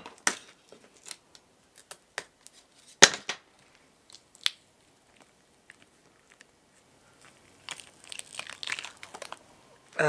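Glued mold-box walls snapping loose in a few sharp cracks, the loudest about three seconds in, then cured Mold Star 15 silicone rubber peeling away from the base board and the knob masters with a crackling, tearing sound near the end.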